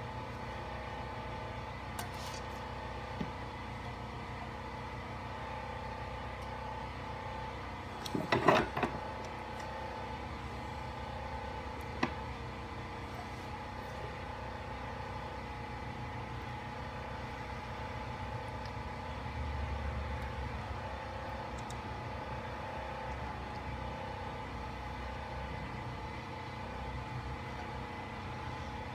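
Steady background hum with small metal clicks as valve-train parts are handled on a BMW S52 cylinder head. A short rattle of clicks about eight seconds in is the loudest, with single clicks around two, three and twelve seconds in.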